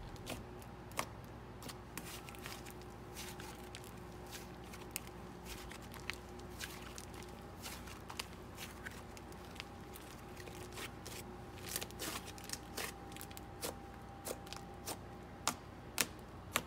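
Butter slime made with Daiso clay being pressed and squished by hand, giving faint sizzly crackles and small pops that come more often in the last few seconds. A faint steady hum runs underneath.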